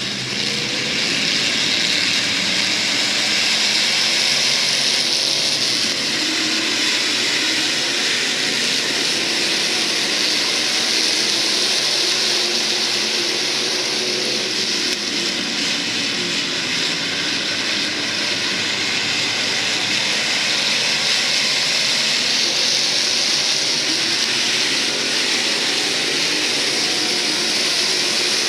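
A field of IMCA SportMod race cars' V8 engines running hard on a dirt oval, blending into one steady, loud drone with wavering engine pitch.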